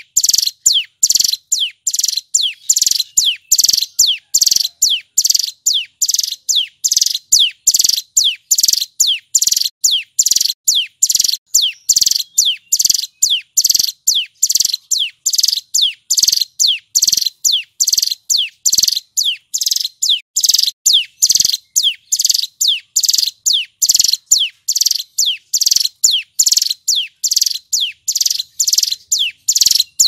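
Male ciblek gunung, a mountain prinia, singing loudly and without pause: a fast, even string of sharp high notes, each sliding downward, about three a second.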